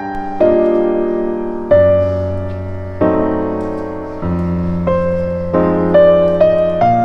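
Background piano music: a slow melody over chords, each note struck and then fading, with new notes coming every half second to second and a half.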